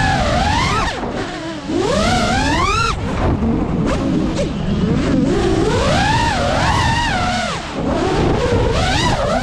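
GEPRC Mark5 FPV quadcopter's brushless motors and propellers whining, the pitch swooping up and down with the throttle, with a steep climb about two to three seconds in and several more swings later.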